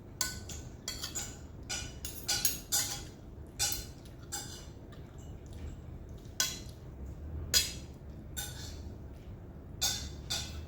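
Cutlery clinking against plates and bowls while eating, a series of short, sharp clinks at irregular intervals.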